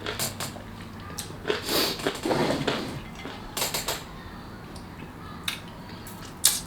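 Eating and handling noises: a few light clicks and taps, with a longer rustling crunch about two seconds in.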